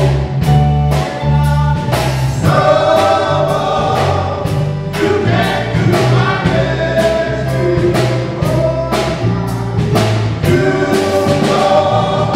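Men's gospel group singing in harmony over a band, with held bass notes and a steady beat.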